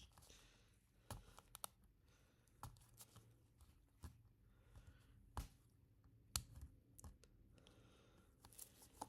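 Faint scattered clicks and light scraping of a pick and prying tool working against an iPhone 2G's housing as the case is levered open, about eight sharp ticks spread out, the loudest a little past the middle.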